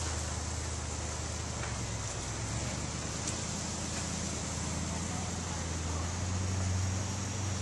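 Monster buggy's engine running as it drives off, its low drone rising in pitch about three seconds in and again, louder, near the end.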